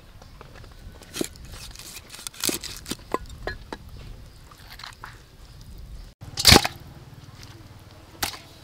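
Cleaver chopping a large fish into steaks on a wooden chopping board: a series of sharp knocks, irregularly spaced, the loudest about six and a half seconds in.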